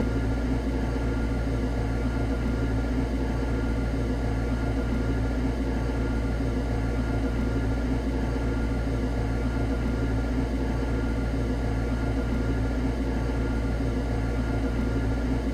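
Industrial cutting saw machine running with a steady, even hum and several constant tones, with no sharp cuts or impacts standing out.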